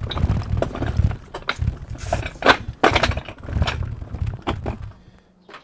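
Irregular knocks and clatter over a low rumble, stopping about five seconds in: the rebuilt engine-and-transmission assembly being shifted into place on concrete.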